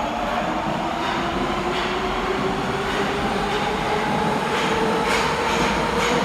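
Nagoya subway train running, its motor whine slowly rising in pitch over a steady rumble, with a few faint clicks from the wheels.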